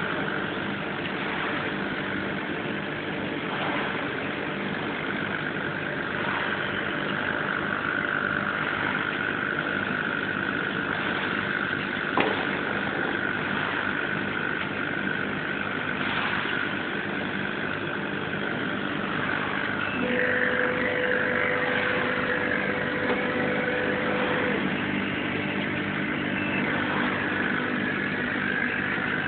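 Laser cutting machine running: a steady mechanical hum with a high whine over it. A single click comes near the middle, and a higher steady tone sounds for a few seconds about two-thirds of the way through.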